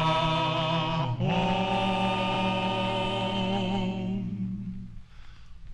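Male voices singing a cappella in barbershop harmony. About a second in they move to a final chord and hold it, and it fades out near the end.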